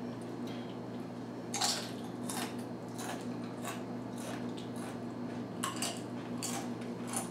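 Spicy Doritos tortilla chips being bitten and chewed: a scattering of short, sharp crunches at irregular intervals, over a steady low hum.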